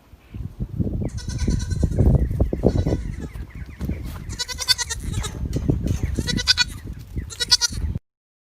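An animal calling four times in loud, high calls over a low rumbling background; the sound cuts off suddenly near the end.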